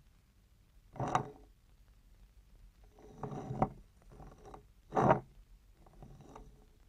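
A clay tile being ground against a tabletop by hand: three scraping strokes, each about half a second long, roughly two seconds apart.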